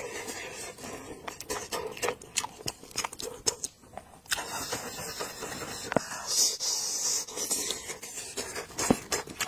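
Close-up eating sounds of a person chewing spiced sheep's head meat: a run of wet mouth clicks and smacks, with plastic-gloved hands pulling meat apart.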